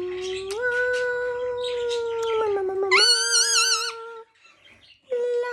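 Long held singing notes from the owner and an Indian ringneck parrot singing along, with a higher, wavering parrot call about three seconds in. The notes break off for about a second, then another held note begins.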